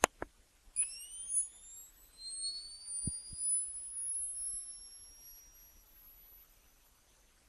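Night-vision goggles powering up as a sound effect: a click, then a high-pitched electronic whine that rises in pitch and levels off, fading away over several seconds. Two short low thumps come about three seconds in.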